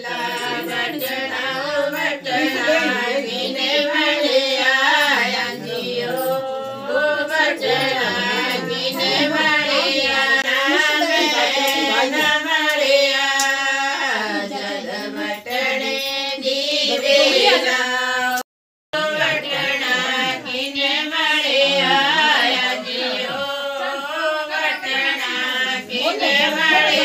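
Women's voices singing together, continuous, with a brief dropout about two-thirds of the way through.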